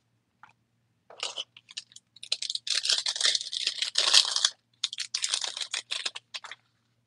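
Foil wrapper of a Panini Prizm baseball card pack crinkling and tearing as it is ripped open by hand: a dense crackle that starts about a second in, is loudest in the middle and stops shortly before the end.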